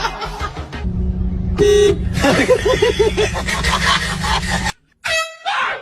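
A short, loud air horn blast about a second and a half in, over a loud low rumble, followed by a person crying out in a wavering voice. The sound cuts off abruptly near the end and gives way to another short shout.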